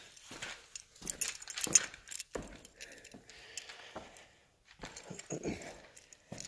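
Irregular scraping, rustling and small clinks of a person clambering over cave rock with a hand-held camera, with a brief lull a little past the middle.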